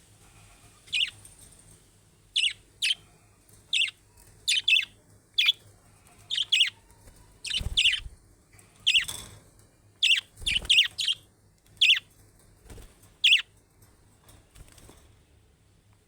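Budgerigars giving short, sharp chirps, one or two at a time, some in quick pairs, with a few low thumps between them.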